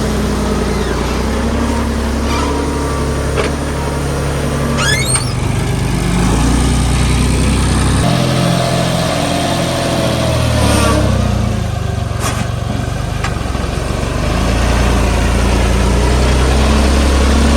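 Tractor diesel engine running and working a backhoe loader attachment. Its note shifts several times as the load changes, with an abrupt change about eight seconds in and a brief high squeal near five seconds.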